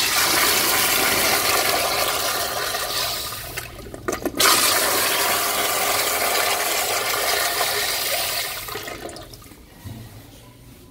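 Wall-hung toilet flushing: loud rushing and swirling water. It dips briefly about four seconds in, surges again, then dies away about nine seconds in.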